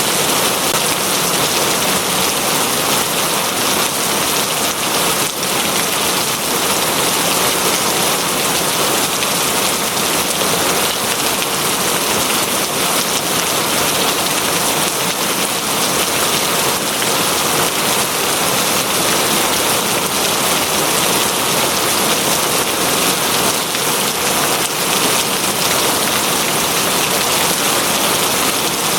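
Steady, dense rain falling on a surface, an even hiss without pauses.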